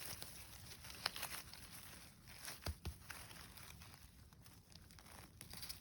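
Faint rustling and crunching of forest-floor litter, with a sharper crack about a second in and two close crunches near three seconds in.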